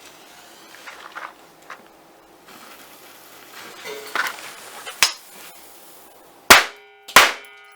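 Two small firecrackers set into drilled pennies going off near the end, two sharp bangs about 0.7 s apart. A short metallic ringing follows the second bang.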